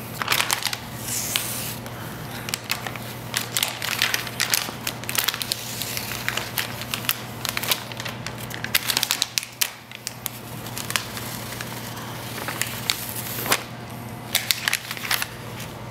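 Sticky protective paper being peeled off a clear plastic splash guard and crumpled in the hands: a run of irregular crackles and crinkles, thinning briefly about two-thirds of the way through.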